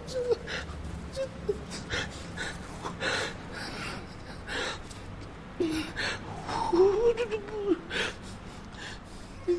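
A man's short gasping breaths, with a few brief moaning vocal sounds.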